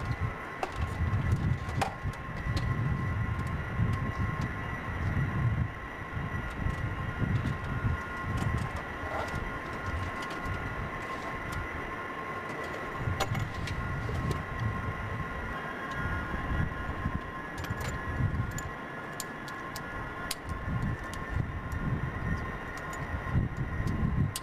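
Steady high whine of jet turbines running on an airfield flight line, with a gusting low rumble of wind on the microphone and a few small clicks.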